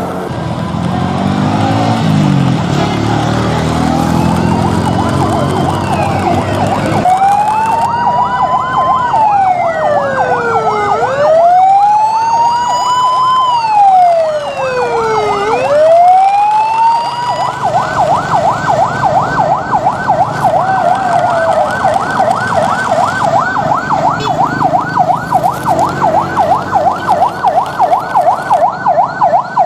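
A siren: for its first seven seconds or so a lower sound with shifting pitch, then two slow wails that rise and fall, then a fast warbling yelp.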